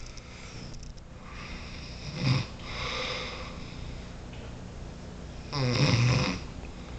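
A man snoring while asleep: a short, loud snore about two seconds in, a softer breath after it, and a longer, louder snore near the end.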